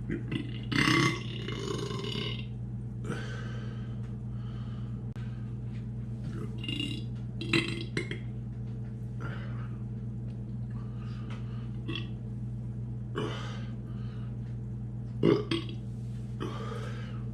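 A man burping repeatedly in a series of short burps at uneven intervals, the loudest about a second in and again about fifteen seconds in, over a steady low electrical hum.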